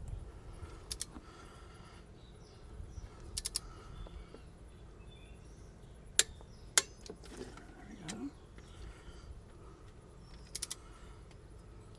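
Torque wrench and socket on the engine's bolts: short runs of ratchet ticks and two sharp clicks, about half a second apart, a little past halfway, as the 15 mm bolts are tightened to 40 foot-pounds.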